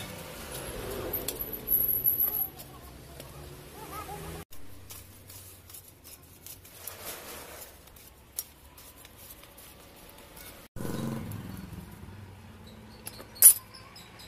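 Metal hand plane shaving wood from an axe handle in a few scraping strokes, with a sharp click near the end.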